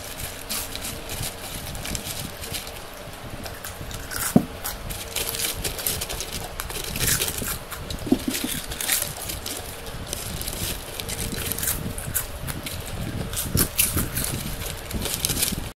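Several people chewing crunchy potato chips in quick succession, a dense, irregular crunching and crackling.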